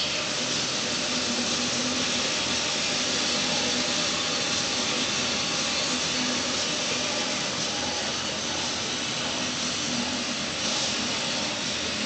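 Roland VersaCAMM SP-540V wide-format printer running, a steady hiss of its fans with a faint motor hum underneath.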